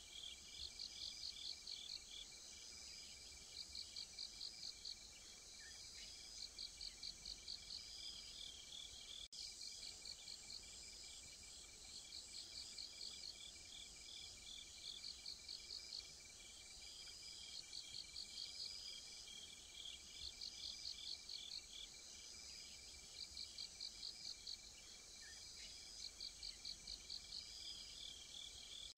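Faint chorus of night insects: one kind calling in short trains of rapid chirps about every two to three seconds, over another's steady high trill.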